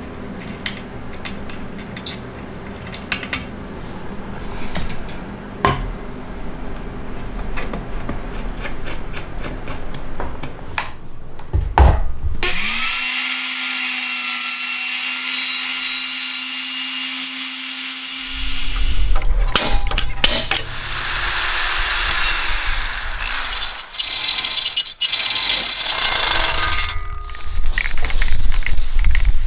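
Small clicks and taps of screws and metal parts being fitted to a circular saw base. Then a Makita circular saw motor starts and runs with a steady whine, and its pitch falls as it winds down. Near the end an aerosol spray can hisses.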